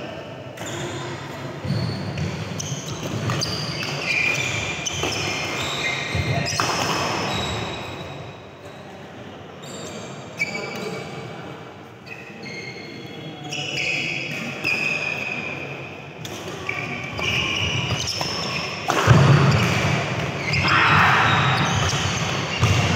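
Badminton doubles play: rackets striking the shuttlecock and shoes squeaking in short high chirps on the court mat, echoing in a large hall. The play gets louder and busier about nineteen seconds in.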